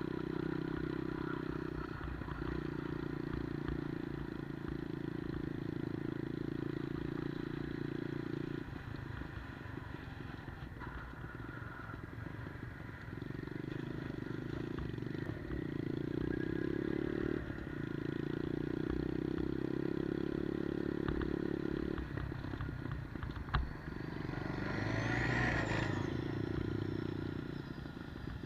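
A 110cc Monkey-style minibike's single-cylinder four-stroke engine running while being ridden. Its note holds steady in stretches and drops back several times between them, as the throttle is opened and closed.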